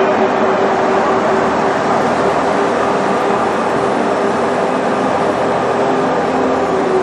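Loud, steady machine noise with a constant hum running under it, with no breaks or knocks.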